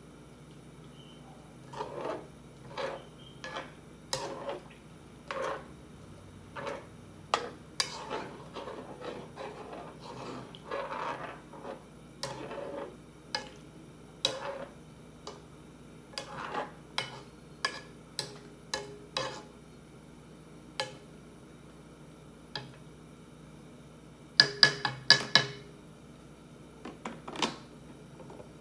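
A utensil stirring and scraping in a pot on a portable gas stove, with irregular clinks and scrapes. Near the end comes a quick run of louder clinks.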